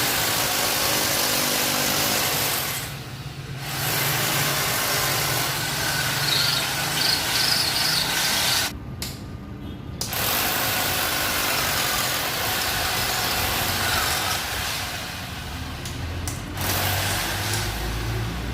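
Stick welding: the electrode arc hisses and crackles steadily over the welding machine's low hum, breaking off briefly twice when the arc is lost.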